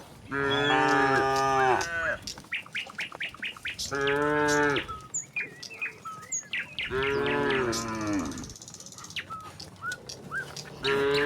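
Cattle mooing: four long, drawn-out moos about three seconds apart, the last starting near the end. Birds chirp in the gaps between the moos.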